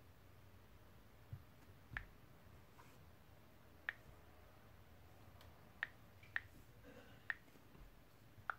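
About six short, sharp clicks at irregular intervals as letters are typed on an iPhone's on-screen keyboard, over near-silent room tone.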